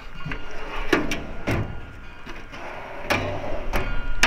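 Steel tool cart drawers on ball-bearing full-extension slides being pulled out and pushed shut by hand, with about five metal knocks as the drawers stop and latch.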